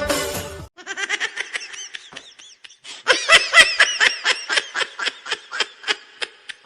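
High-pitched comedy laughing sound effect: a rapid, bubbling giggle of short bursts, about five or six a second, that turns louder about three seconds in.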